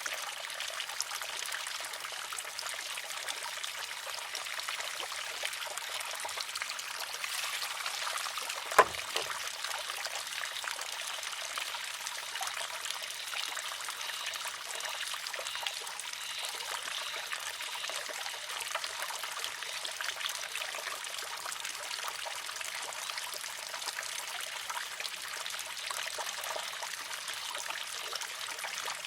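Water trickling steadily into and over a wooden shishi-odoshi. About nine seconds in, the pivoting arm tips and strikes its rock with one sharp clack, followed by a fainter knock.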